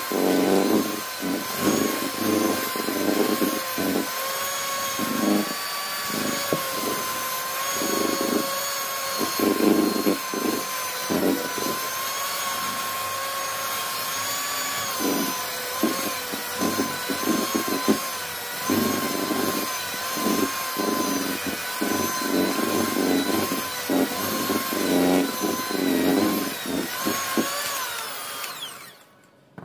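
Electric hand mixer running steadily, its twin beaters churning a stiff butter, sugar and flour dough in a metal bowl, with an uneven low churning under the motor's whine. Near the end the mixer is switched off and its pitch drops away.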